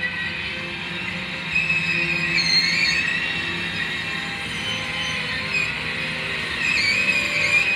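Loaded covered hopper cars of a freight grain train rolling past on steel wheels, with a wavering high-pitched wheel squeal that rises about a second and a half in and again near the end.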